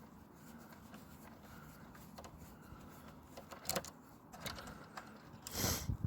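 Small clicks and knocks of plastic printer parts being handled while the printer is taken apart, with a louder clatter lasting about half a second near the end.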